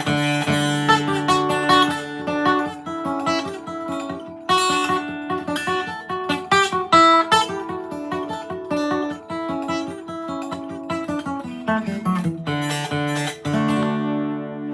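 Gibson J-45 acoustic guitar flatpicked, playing a quick fiddle tune in runs of single notes over bass notes; about 13 seconds in a chord is strummed and left ringing.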